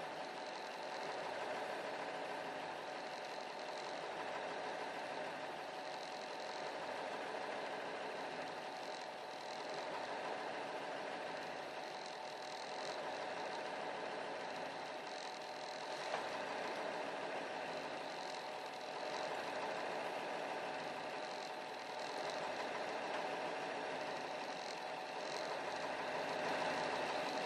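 Engine idling roughly, running steadily but with an uneven, wavering beat.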